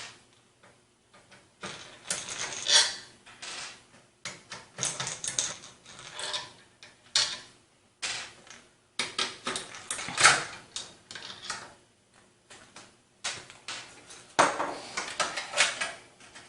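Irregular clicks, rattles and scrapes of hard plastic and metal parts being handled as a front case fan is unscrewed and pulled out of a PC case.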